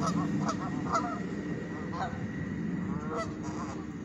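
Geese honking, short calls several times a second at first and fewer after about two seconds, over a steady low rumble.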